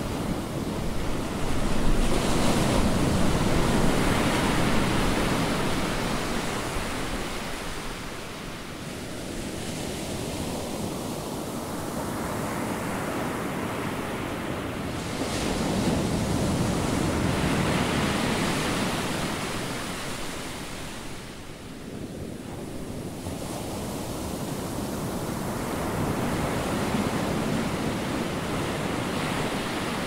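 Ocean surf: waves breaking and washing up the beach, a rushing noise that swells and eases away three times.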